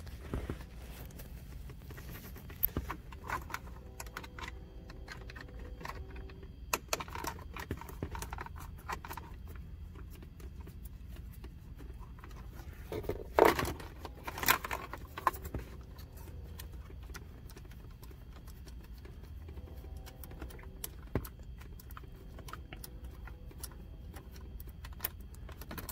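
Scattered light clicks and small knocks of a screwdriver working a trim screw out of a car's dashboard, with a louder cluster of knocks about halfway through.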